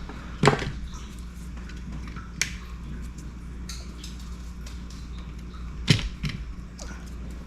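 A few sharp clicks and taps from small components and tools being handled on a workbench, the loudest about half a second in and near six seconds, over a steady low hum.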